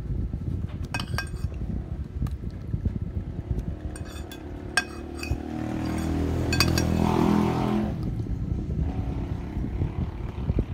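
Metal spoon and fork clinking against a bowl several times while food is scooped up, over a steady low rumble. A louder low droning hum swells and fades from about six to eight seconds in.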